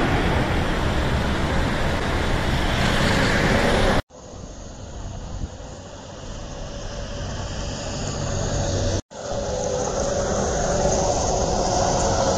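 Jet airliner noise: a twin-engine airliner passing low overhead on landing approach, a loud steady rumble and rush for about four seconds. It cuts off suddenly to a much fainter rumble that grows louder as another airliner approaches, broken by a brief dropout near the end.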